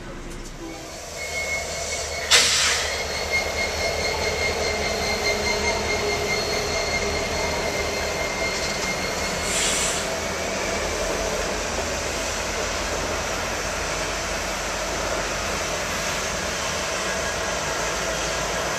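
Union Pacific passenger train cars rolling over a steel girder bridge: a steady rumble of wheels on rail. Through the first half a steady high-pitched squeal runs, with a sharp clank about two seconds in and another about halfway.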